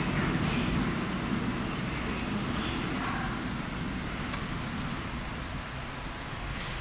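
Freight train rolling past and receding: a steady rush of wagon wheels on the rails that slowly fades away.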